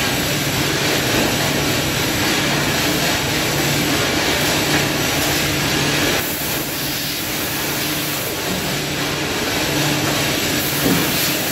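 Steady machinery noise from a die casting machine and its workshop: a continuous hiss with a low hum that comes and goes, easing slightly about six seconds in.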